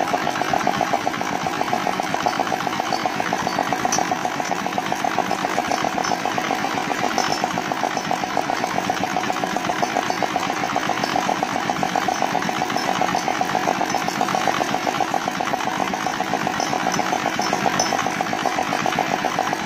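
Dongfeng R175A single-cylinder diesel engine running steadily at a constant speed with a rapid, even exhaust beat: the engine has started and keeps running after its overhaul.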